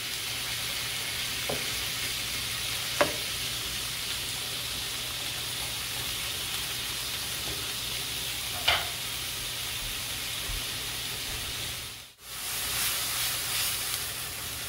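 Shrimp sizzling in oil in a nonstick frying pan, with a few sharp taps of a wooden spoon against the pan as they are stirred. Near the end the sound cuts out for a moment, then comes back louder as the pan is tossed.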